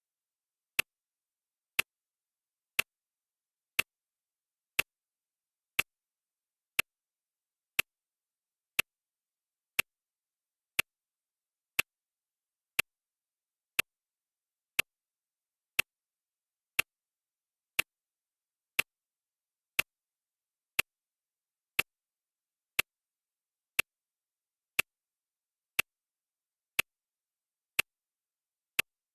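Clock ticking sound effect marking the seconds of a countdown timer: one sharp, even tick every second.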